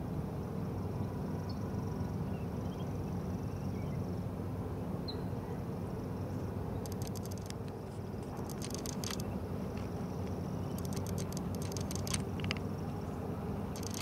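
Outdoor ambience of a steady low hum. About halfway through and again near the end come several short bursts of rapid, high-pitched clicking.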